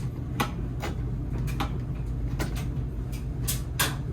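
A tool prying at a part of a washing machine to open it: a series of short, sharp clicks and scrapes, over a steady low hum.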